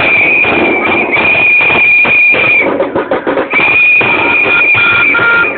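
Long, steady, high whistle blasts, three in a row with a pause in the middle, over a noisy crowd with scattered knocks.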